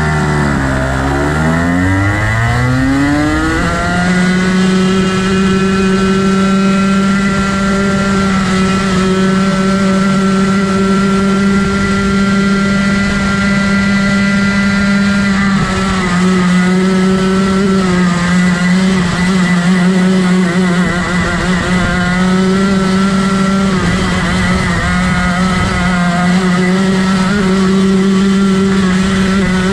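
Rotax Max 125 cc two-stroke kart engine pulling away from the start, its pitch climbing steeply over the first few seconds, then held high and steady at full throttle, with a few brief dips in pitch around the middle.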